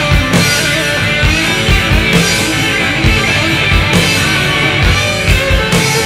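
Rock music with electric guitar and drums.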